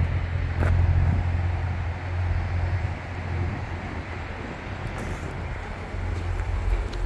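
Corvette Stingray's mid-mounted 6.2-litre V8 idling with a steady low hum. It fades in the middle and grows louder again near the end.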